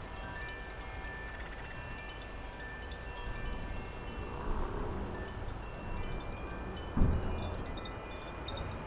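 Wind chimes ringing in the breeze, several overlapping metallic tones sounding and fading, over a low rumble of wind on the microphone. A single sharp thump about seven seconds in.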